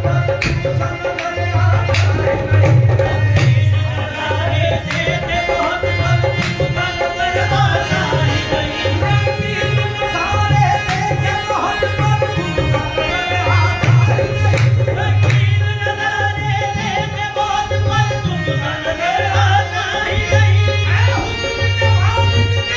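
Live qawwali music: harmonium over a steady hand-drum rhythm, with singing voices.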